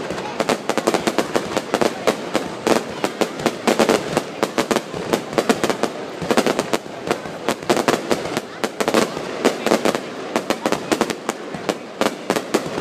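Fireworks bursting close overhead in a dense, continuous barrage of sharp cracks and bangs, many a second.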